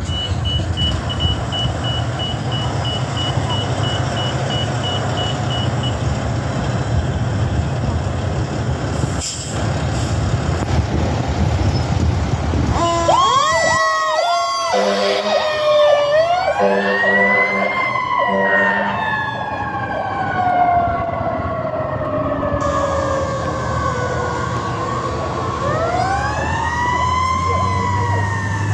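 Fire truck's diesel engine running, with a short run of high beeps early on. About halfway through, the siren starts with a few quick yelps, short air horn blasts, and then a long wail that rises and slowly falls, rising again near the end as the truck pulls out on a call.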